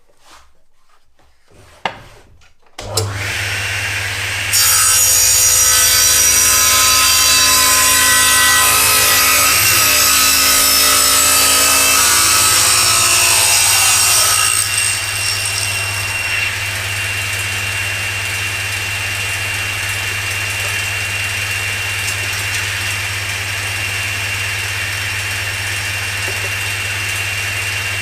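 A few clicks, then a table saw switched on about three seconds in. From about four and a half seconds its blade cuts a tenon cheek through wood for about ten seconds, louder, then the saw runs free with a steady hum and a high whine.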